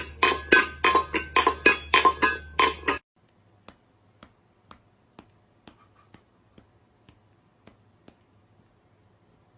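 Music with a fast, evenly struck beat and pitched notes that cuts off suddenly about three seconds in, leaving faint regular ticks, about two a second.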